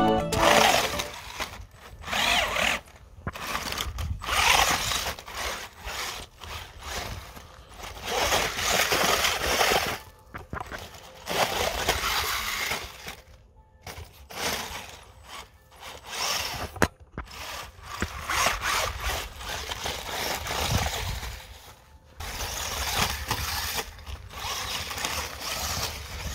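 A WLtoys 12427/12428 RC buggy's electric motor and gears whining in uneven bursts of throttle, stopping and starting with short gaps, as it climbs over rock slabs, dirt and gravel.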